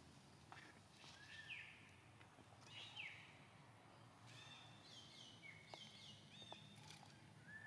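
Faint high-pitched animal chirps: a few short falling squeaks, then a quick run of chirps in the middle, over a quiet outdoor background.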